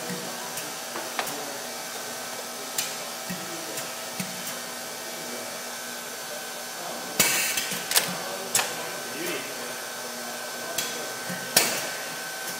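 Automated book-binding machine running with a steady hum, its pneumatic cylinders clacking at intervals. About seven seconds in comes a cluster of loud clacks with a short burst of air hiss, and another loud clack comes near the end.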